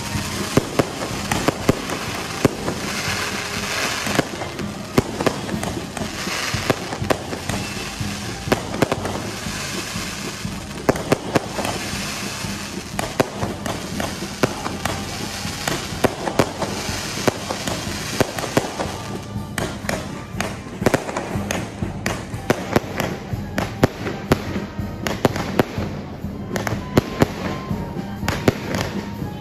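Aerial fireworks going off in quick succession: a dense run of sharp bangs and crackles, with stretches of hissing as the shells go up.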